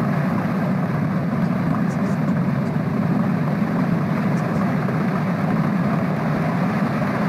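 Heavy hail pelting down onto a roof and the ground: a dense, steady noise of countless hailstones striking.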